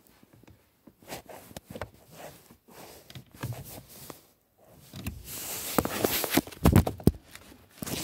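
Soft rustling and light knocks of socked feet pressing car pedals, with sweatpant fabric moving. About five seconds in, louder handling noise and several sharp knocks as the filming phone is fumbled and dropped.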